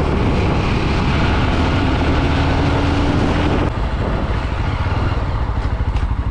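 Motorcycle riding in traffic: the engine runs under heavy wind and road noise, with a steady hum through the middle. About four seconds in the sound drops a little and turns into a choppier, pulsing engine beat.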